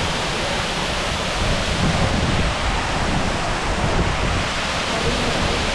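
Waterfall rushing steadily, with low wind buffeting on the microphone.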